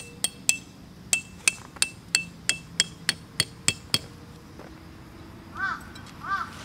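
A tent peg being hammered into the ground: about a dozen sharp, ringing metallic strikes, roughly three a second, that stop about four seconds in. Near the end a bird calls twice.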